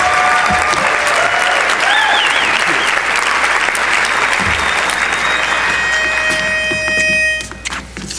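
Audience applause with a few cheers in the first couple of seconds, dying away near the end. Just before the clapping stops, a single steady note is held briefly.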